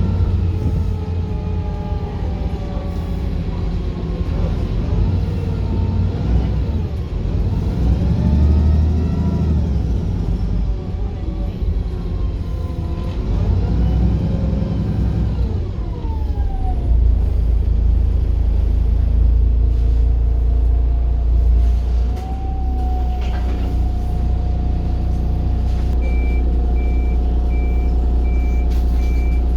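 Wright Pulsar single-decker bus engine running, its pitch rising and falling repeatedly as the bus works through its gears, then settling to a steady drone. Near the end a high electronic beeping starts, about two beeps a second.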